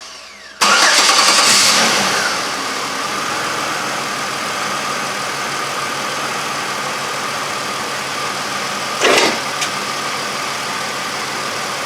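A 2003 Chevrolet Impala's V6 engine starting after a brief crank, flaring up loudly and settling within about two seconds to a steady idle, now running on freshly replaced spark plug wires for cylinders 3 and 5 that had been arcing and causing a cylinder 5 misfire. A short loud burst breaks in about nine seconds in.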